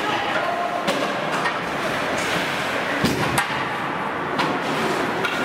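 Ice hockey play on a rink: skates scraping the ice, with several sharp clacks of sticks and puck against the ice and boards, the loudest pair about three seconds in.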